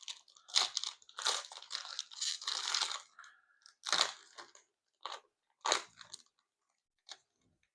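Packaging of a sealed box of trading cards crinkling and tearing as it is opened by hand: dense, irregular rustling for about three seconds, then a few separate crinkles.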